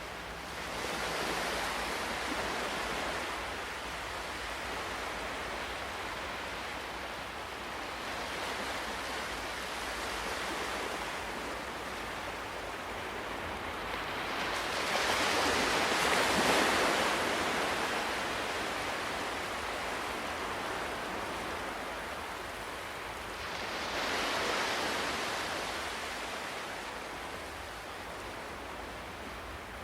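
Ocean waves breaking and washing up the shore in slow swells, about four in all, the largest about halfway through.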